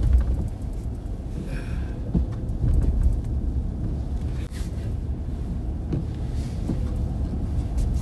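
Car driving, a steady low rumble of engine and road noise, with a few faint clicks and a brief high squeak about one and a half seconds in.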